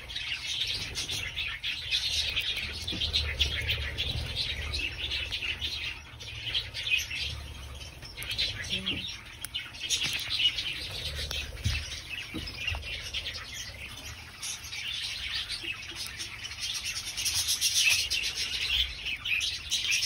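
Budgerigars chirping and chattering, many short overlapping chirps, a little louder about half-way through and again near the end.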